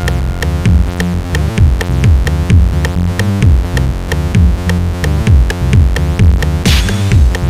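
Electronic background music: a drum-machine beat with synthesizer and repeated falling bass notes.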